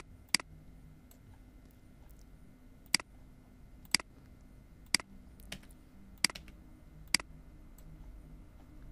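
Computer mouse clicking: six sharp single clicks at irregular intervals of about one to two and a half seconds, over a faint steady room hum.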